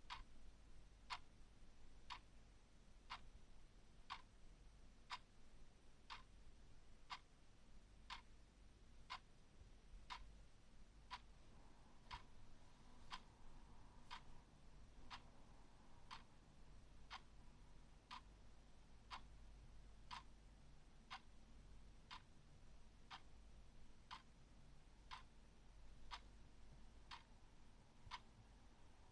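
Clock ticking once a second, quiet, evenly spaced ticks.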